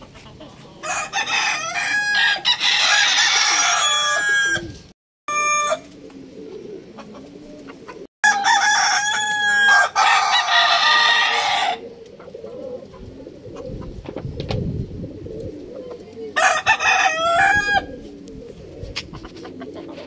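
White roosters crowing: several long crows, one after another, with softer chicken calls between them.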